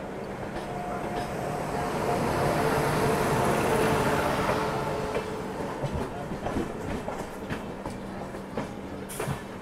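Electric locomotive and its LHB coaches passing on the adjacent track. The sound swells to its loudest with a steady hum as the locomotive goes by about three to four seconds in. After that comes a rhythmic clickety-clack of wheels over rail joints as the coaches pass.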